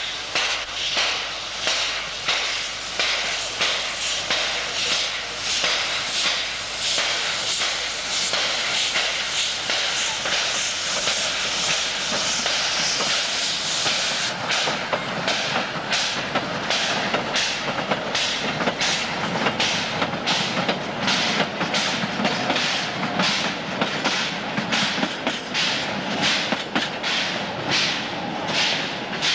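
Narrow-gauge Mallet steam tank locomotive working a train past, its exhaust chuffing in a steady rhythm. The beats grow sharper and more distinct from about halfway, at about two a second, as the engine passes close.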